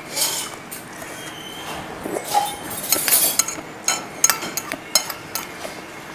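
Metal spoon clinking and scraping on a ceramic plate while eating rice, in irregular light taps and short scrapes, the sharpest clinks coming in the second half.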